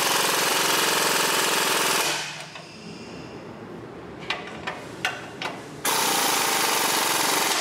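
Impact wrench with a 15 mm deep-well socket hammering catalytic converter flange nuts tight. A rapid hammering burst stops about two seconds in, a few light clicks come as the socket is moved to the other stud, and a second burst starts about six seconds in.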